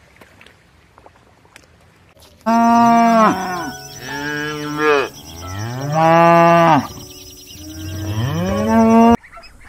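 Cow mooing, several long loud moos that rise and fall in pitch, starting about two and a half seconds in and cut off abruptly near the end.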